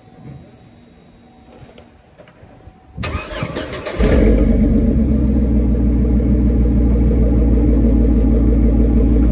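Pickup truck engine started: the starter cranks for about a second, then the engine catches and settles into a loud, steady idle through the exhaust exiting under the side of the truck. The engine is already warm.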